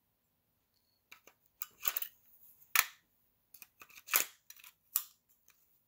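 AA batteries being fitted into the plastic battery compartment of a pistol-grip RC transmitter: a string of irregular light clicks and taps.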